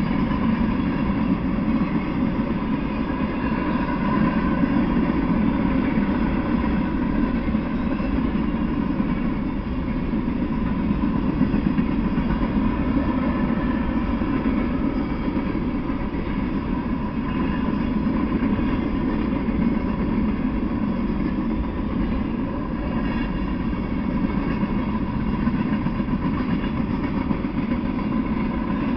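Freight train of boxcars and covered hopper cars rolling past, a steady, even rumble of steel wheels on the rails.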